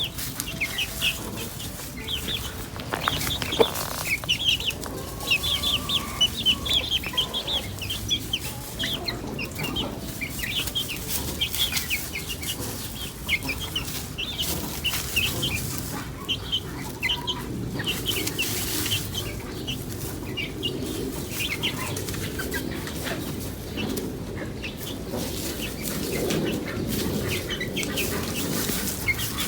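Chickens clucking, with many short, high chirps throughout.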